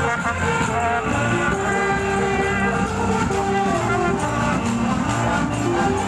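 A women's funeral brass band playing a melody in held, stepwise notes.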